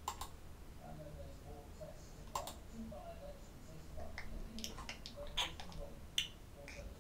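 Scattered sharp clicks of someone clicking on a laptop: one at the start, one about two and a half seconds in, a quick run of several between four and five and a half seconds, and one more near the end, over faint room tone.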